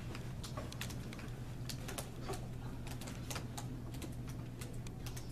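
Typing on laptop keyboards: irregular key clicks over a steady low hum.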